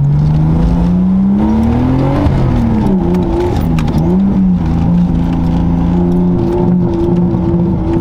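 Nissan Laurel's RB20DET turbocharged straight-six pulling through a gear from inside the cabin, its pitch rising for about two seconds, dropping at a gear change, then holding steady while cruising.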